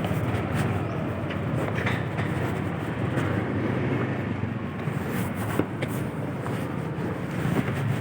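A vehicle on the move: a steady low rumble of engine and road noise, with scattered short knocks and rattles.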